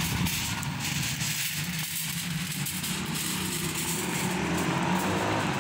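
A motor engine running steadily, a low hum under an even hiss.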